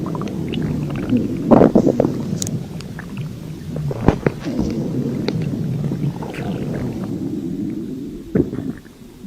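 A human stomach growling: a continuous low, churning rumble broken by gurgles and small pops, fading away near the end.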